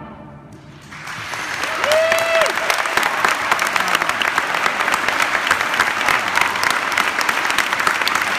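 The last of a concert band's final chord fades out, then audience applause starts about a second in and builds into steady clapping. A single brief high cheer rises out of the crowd near two seconds.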